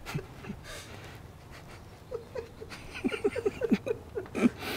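A man laughing quietly to himself: scattered breathy chuckles, then a quick run of short laughs, each dropping in pitch, about three seconds in.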